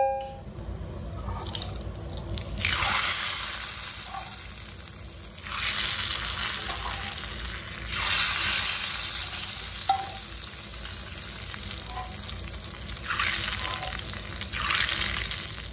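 Hot tadka (oil tempering) sizzling on a bowl of daal, in several bursts that start suddenly and fade away over a couple of seconds, with a steel ladle stirring the daal.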